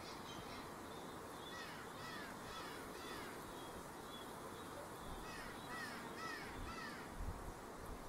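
Electronic bird scarer playing recorded bird distress calls through its speaker, faint: two runs of short, downward-sliding calls, about three a second, starting about a second and a half in and again about five seconds in. The calls imitate birds under attack, to scare birds off ripening grapes. A couple of low bumps near the end.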